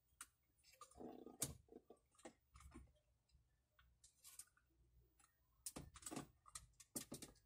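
Near silence broken by faint, scattered plastic clicks and handling noises as hands work a car door's power-window switch panel and try to unlatch its wiring connector. The clicks come in a cluster about a second in and again near the end.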